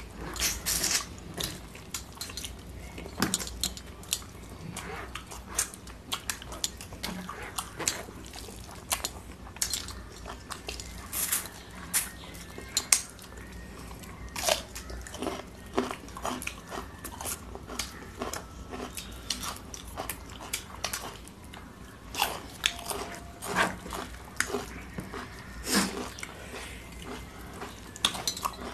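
Close-up eating by hand: chewing, lip smacking, and fingers mixing rice and curry on plates, heard as frequent short wet clicks and smacks at irregular intervals.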